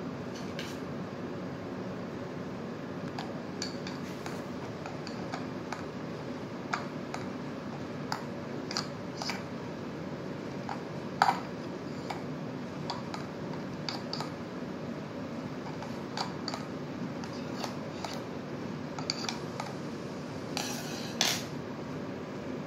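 Scattered light clicks and knocks of a plastic floor-drain odour-seal trap being handled and set against a tabletop, over a steady background hum. The sharpest knock is about halfway through, and a short cluster comes near the end.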